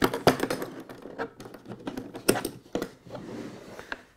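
A hard plastic Makita drill carry case being handled and opened: a string of sharp clicks and knocks as its latches are unsnapped and the lid is swung open, loudest about two and a half seconds in.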